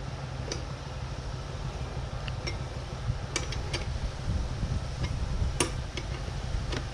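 Light, scattered metallic clicks and clinks of a 13 mm spanner working on a rack bolt as it is tightened, over a steady low hum.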